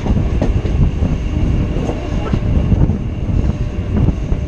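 Moving local train's wheels and track heard close from the outside of the coach: a loud, steady rumble with wind buffeting the microphone, irregular sharp clicks from the rails, and a faint steady high whine.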